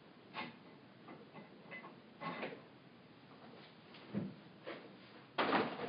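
Scattered knocks and clatters of objects being handled, with the loudest, a rattling scrape of about half a second, near the end.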